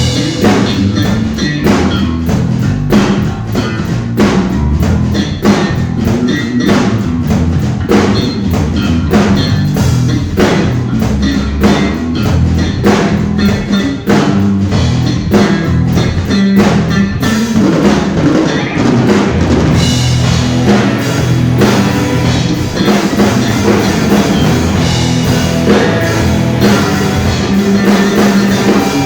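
Rock band playing live, with a loud drum kit (kick, snare and cymbals) driving a steady beat over bass and electric guitar. About seventeen seconds in, the drumming eases for a few seconds before the full band comes back in.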